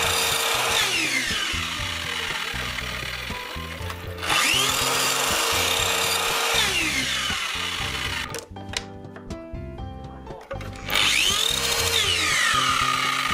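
Makita sliding miter saw cutting the corners of a wooden kumiko lattice panel. Its motor winds down with a falling whine about a second in, then is switched on twice more, about four and about eleven seconds in, each time spinning up with a rising whine, running through the cut and winding down again.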